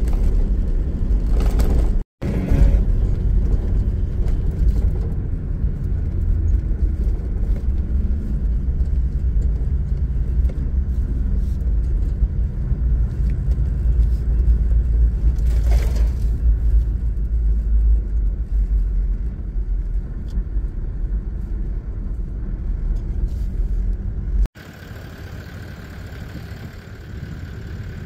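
In-cabin rumble of a 4WD driving on a dirt track, a loud, dense low noise of engine and tyres on gravel. Near the end it cuts off abruptly to a much quieter steady background.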